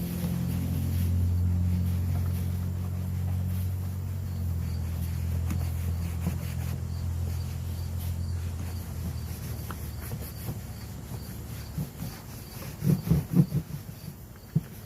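A low machine hum that fades away about two-thirds of the way through, then a few knocks near the end, with crickets chirping steadily in the background.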